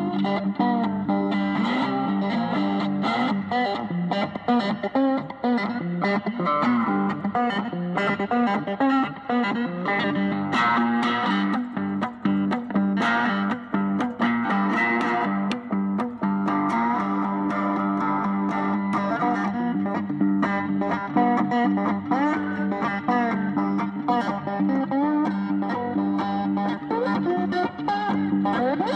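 Background music led by electric guitar with effects and distortion.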